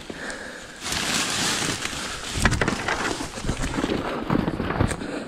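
Rustling and scraping of clothing and brush right against a body-worn camera as a person scrambles and slides down a brushy embankment. It gets loud about a second in, with knocks and thumps through the second half.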